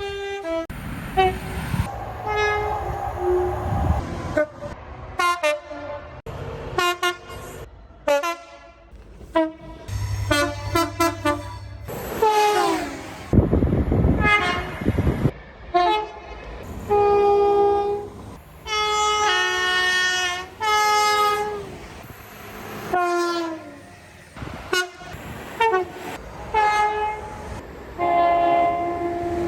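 British train horns sounding one after another from different locomotives and multiple units, mostly two-tone blasts that step between a high and a low note, some sliding down in pitch. Short bursts of train running noise fill the gaps.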